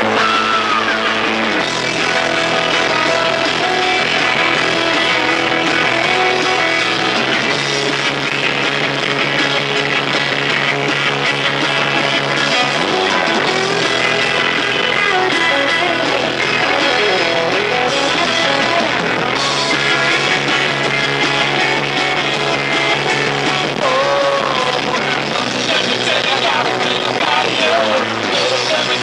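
A live rock band playing an instrumental stretch of a song: electric guitars, bass, drums and keyboard, with a lead line that bends up and down in pitch.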